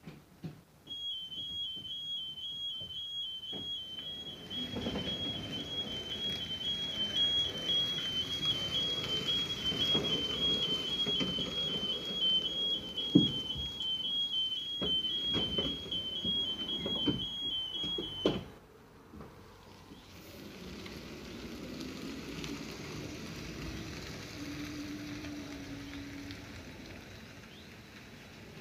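A high electronic warning beeper alternating steadily between two notes over the running noise of a small electric utility truck (2003 Aixam Mega Truck) moving across the yard, with scattered knocks and clicks. The beeping cuts off suddenly about 18 seconds in, leaving a quieter hum that rises and falls.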